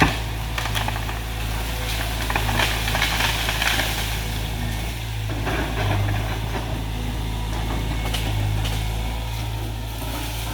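Diesel engine of a CAT excavator running steadily, with a sharp knock right at the start and scattered short cracks and clicks over the engine hum.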